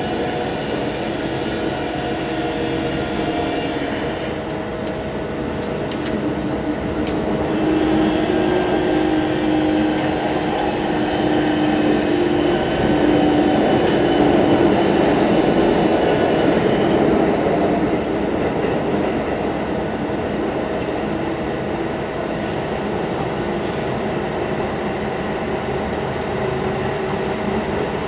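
Keikyu 2100-series electric train running, heard from inside the car: a steady rumble with several held whining tones that drift slightly in pitch, louder through the middle. The uploader calls the noise on this run a mysterious abnormal noise.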